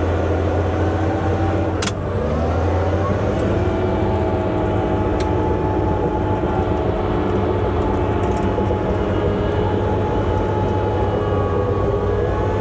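Bulldozer's diesel engine running steadily while pushing a pile of chicken litter. About two seconds in, a sharp click comes just before the engine note dips and then rises again, and there is another click a few seconds later.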